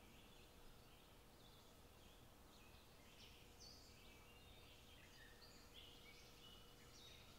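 Faint birdsong: many short chirps and quick falling notes from small birds, busier in the second half, over a low steady background hum.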